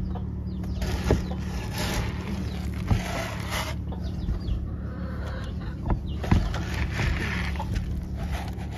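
Pony feed pellets being scooped and poured from a plastic scoop into a plastic feed bucket: several rattling pours with a few sharp knocks of the scoop against the container, over a steady low hum.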